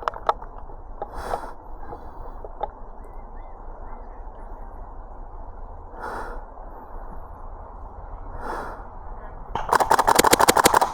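A player breathing hard, a few slow breaths, then about a second and a half before the end a rapid burst of airsoft rifle fire, many shots in quick, even succession.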